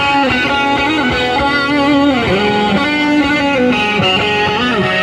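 Loud recorded music with prominent guitar, played for a stage dance.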